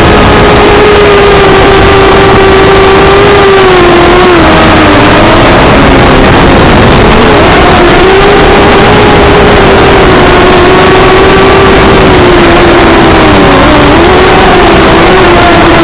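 Walkera Rodeo 150 racing quadcopter's electric motors and propellers buzzing steadily under a loud hiss, heard through the onboard camera's microphone. The pitch dips twice, about four seconds in and again near the end, as the throttle changes, then picks back up.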